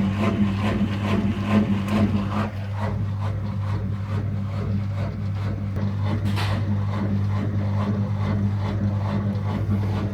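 Washing machine running with a steady hum and a quick, even banging, about two to three knocks a second, that fades out after a couple of seconds.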